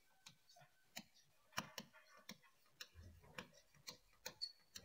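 Faint, irregular clicks and taps of chalk writing on a blackboard, a dozen or so short strokes with gaps between them.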